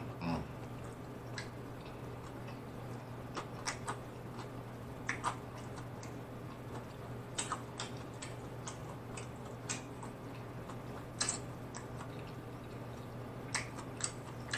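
Close-miked chewing of a mouthful of Italian beef sandwich: scattered soft wet clicks and smacks from the mouth, a few a second at most, over a faint steady low hum.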